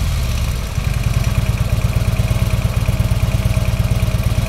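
The 103-cubic-inch V-twin of a 2011 Harley-Davidson Road Glide Ultra idling with a steady, even pulse, settling down from a blip of the throttle in the first second.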